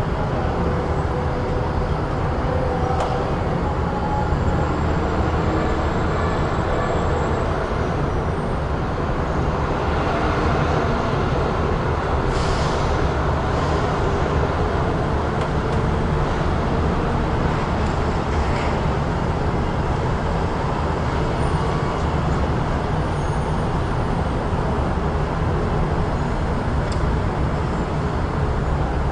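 Busy city street ambience: a steady low traffic rumble of passing vehicles, with a brief hiss about twelve seconds in.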